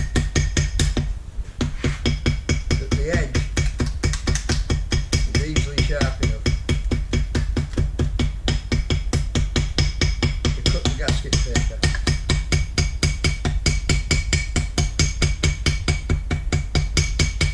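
Small ball-peen hammer tapping quickly and evenly, about five light taps a second, on gasket paper laid over a metal casting, cutting the paper out along the casting's edge. The taps break off briefly about a second in.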